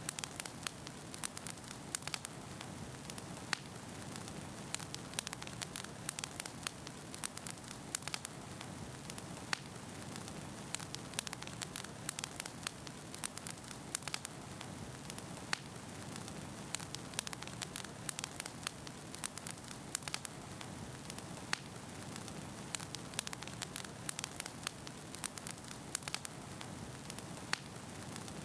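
Fire crackling: irregular sharp pops and snaps over a steady soft hiss and low rumble.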